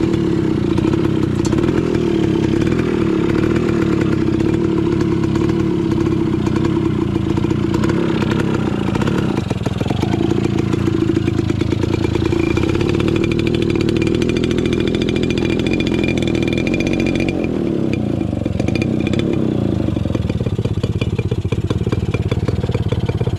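Small motorcycle engine running at low speed under load, heard from on board, its pitch dipping and picking up again twice as the rider eases off and accelerates.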